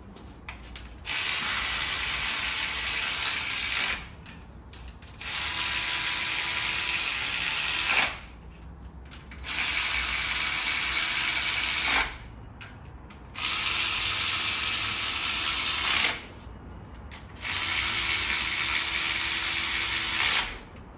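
Handheld power ratchet running cylinder head bolts down snug on an LY5 5.3L V8, five runs of about three seconds each with short pauses as it moves from bolt to bolt. This brings the bolts down to zero lash before the first torque step.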